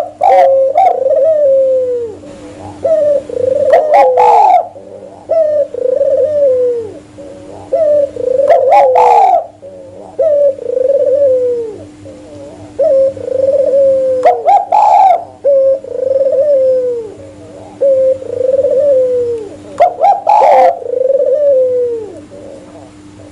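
Doves cooing, the mixed calls of a spotted dove and an albino Barbary (ringneck) dove: a repeating phrase about every five seconds, each a sharp higher note followed by three or four falling coos. A steady low hum runs underneath.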